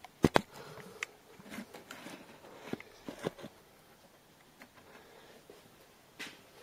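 Two sharp knocks in quick succession as the camera is set down on a hard surface, then a few scattered light clicks and taps.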